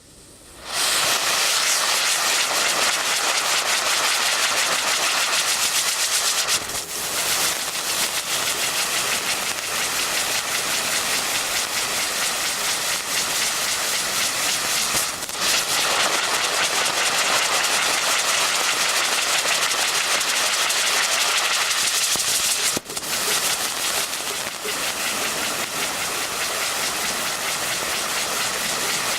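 Nico 'Orient' fireworks sun (spinning firework wheel) burning with a steady, loud hissing rush that starts about a second in. It dips briefly about 6.5, 15 and 23 seconds in as it switches between its coloured-flame and silver-fountain stages.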